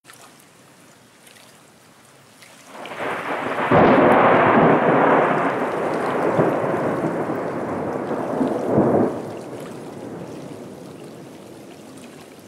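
A peal of thunder: it starts building about three seconds in, is loudest at about four seconds, rumbles on with a second sharp crack near nine seconds, then dies away.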